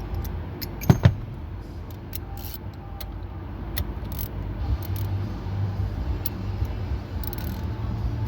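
Metal tools clinking and knocking while a bearing puller is worked on the steering column bearing, with two sharp metal knocks about a second in and small clicks after, over a steady low hum.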